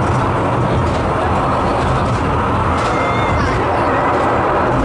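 Penang Hill funicular car running up its rails through a tunnel, heard from inside the car: a steady, loud rumble of wheels and travel noise.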